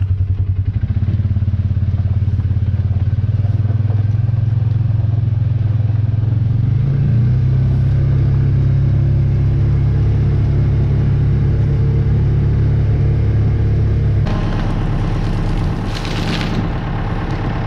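Side-by-side UTV engine running steadily as it drives along a snowy track. About fourteen seconds in, it gives way to a lower-pitched tractor engine.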